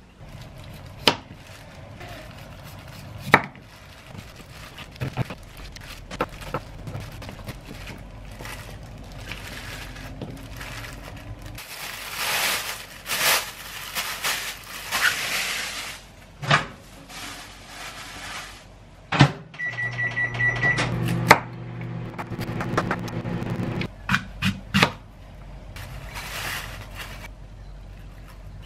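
Kitchen handling sounds: knocks and the rustling of a plastic bag. Then, about twenty seconds in, a short run of microwave oven beeps, followed by the oven's hum for a few seconds.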